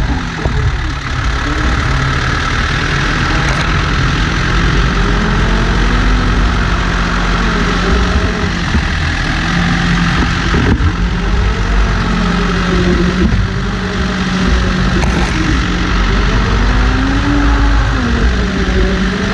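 B95 backhoe loader's diesel engine running under load, its pitch rising and falling several times over a steady low hum as the front loader bucket levels loose dirt.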